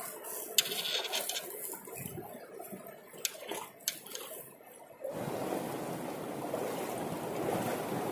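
A few sharp clicks and light handling knocks over a faint background. About five seconds in, the sound changes suddenly to a steady wash of sea water lapping against the hull.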